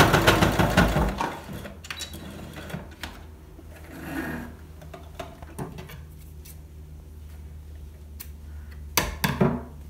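Brother sewing machine stitching for about the first second, then stopping, leaving a low steady hum and small handling clicks. Near the end come a few sharp snips as the threads are cut with scissors.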